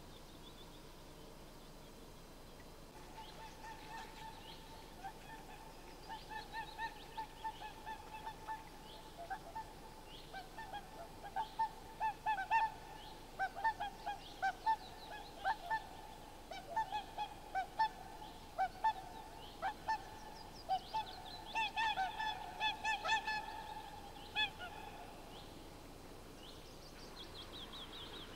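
Whooper swans calling: a long run of short, bugling honks from several birds, overlapping and densest in the middle, then fading out near the end. Small songbirds chirp faintly at the start and end.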